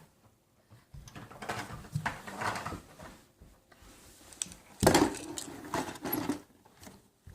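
Irregular clicking and clattering of hard pieces being handled, with the loudest knock about five seconds in.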